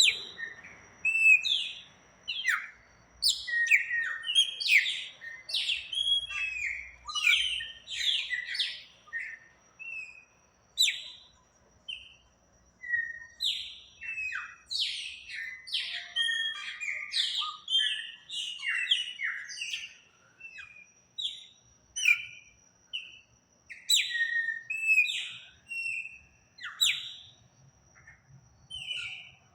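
Songbirds singing: a dense, continual run of short, quick chirps and whistled notes, many sliding down in pitch, with brief pauses between phrases. A faint steady high tone sits underneath.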